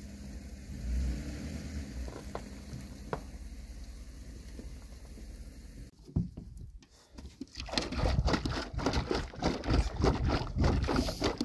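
A low, steady rumble, then a sharp click about six seconds in as the lid of a metal can of water sealer is pried open. From about the eighth second, the liquid sealer glugs and splatters as it is poured from the can onto a plywood concrete-form panel; this is the loudest part.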